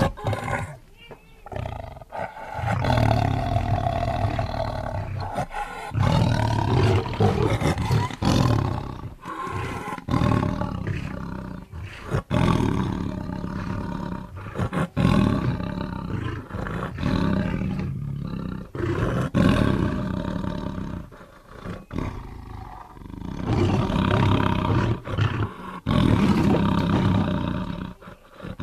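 Tiger roaring: a series of deep calls, each lasting a couple of seconds, with short pauses between them.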